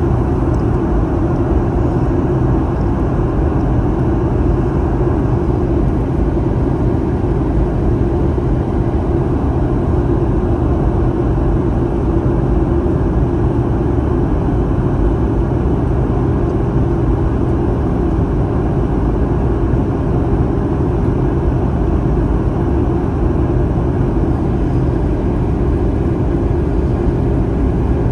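Steady in-flight cabin noise of a Boeing 737-800 heard from a window seat beside the wing: an even, unchanging drone of CFM56-7B jet engines and airflow, strongest in the low range.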